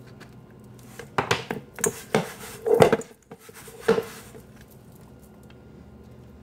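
Stainless steel mixing bowl knocking and clattering as hands work vital wheat gluten dough in it: a handful of knocks and scrapes between about one and four seconds in, the loudest about three seconds in, some of them with a brief metallic ring.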